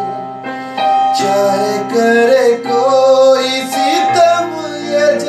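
A man singing a Hindi romantic song to his own Yamaha electronic keyboard. Held keyboard chords sound under the voice, which comes in about a second in with long, bending sung notes.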